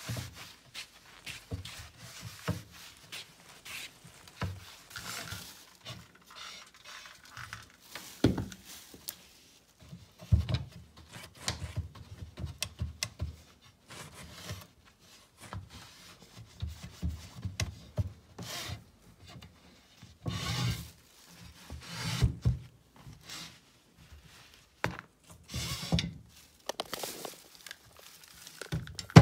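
Irregular rubbing, scraping and dull knocks against a wooden hutch, with heavier low thumps around ten and again around twenty seconds in.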